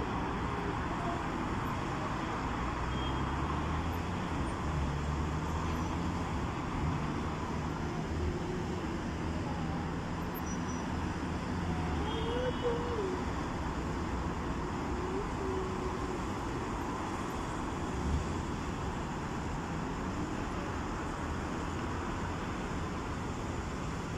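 Steady road traffic noise of vehicles passing. A low engine hum is strongest in the first half, and a brief rising-and-falling tone comes about halfway through.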